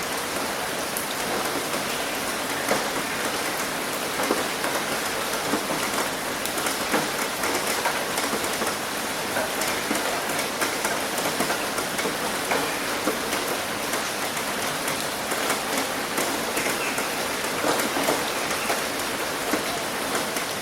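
Steady rain falling, a dense hiss of drops with many small close patters of individual drops hitting a surface.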